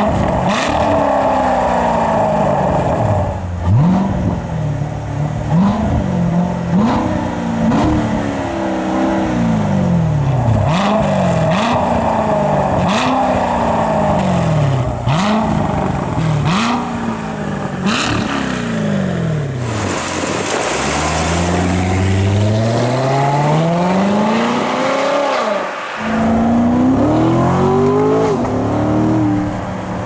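Chevrolet Corvette C7 Stingray's 6.2-litre LT1 V8 revved through its quad-tip exhaust while standing: a quick series of throttle blips, about one a second, each rising sharply and falling back. Later comes one longer rev that climbs slowly and drops away, and another blip near the end.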